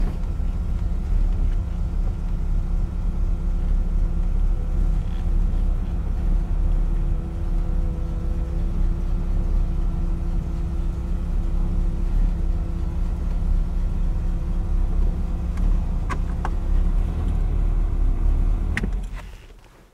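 The swapped-in engine of a 1960 Studebaker Lark VIII, with an Edelbrock four-barrel carburetor and shorty headers, idles steadily with an even low rumble. The sound cuts off near the end.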